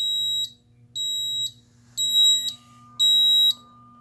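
Fire alarm panel's sounder beeping in alarm, a high beep about half a second long once a second, the signal of an incoming sprinkler water flow alarm not yet acknowledged. A fainter steady tone comes in about halfway.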